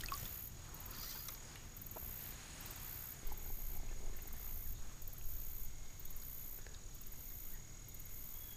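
Insects trilling, high-pitched and faint, in a chorus that pulses about once a second.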